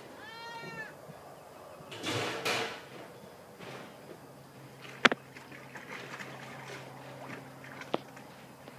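Dog moving about in a plastic kiddie pool: water splashes about two seconds in, then a sharp loud knock about five seconds in and a lighter one near the end.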